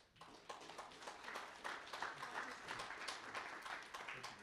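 Audience applauding, a dense patter of claps that dies away near the end.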